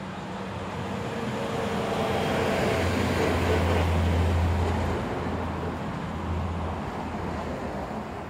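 A road vehicle passing by: its noise swells to a peak about four seconds in, with a low hum strongest at the peak, then fades away.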